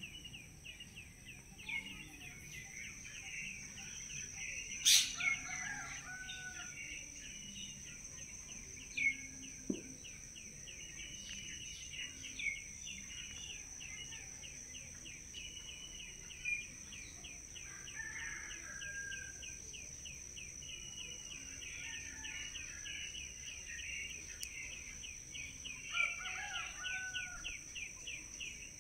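Birds chirping in the background: a fast, unbroken string of high chirps with a few lower calls, over a steady high-pitched whine. There is one sharp click about five seconds in.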